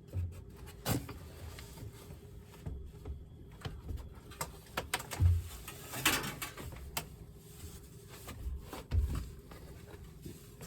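Scattered knocks, clicks and low thumps of handling and moving about, with a longer scraping rustle about six seconds in.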